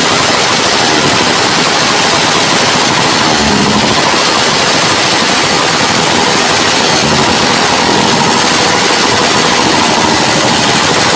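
Motorcycle engine revved hard and held at high revs, a loud steady blare from the exhaust.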